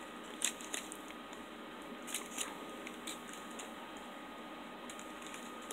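A few faint crinkles and soft clicks of a clear plastic food wrapper being handled around a nougat bar.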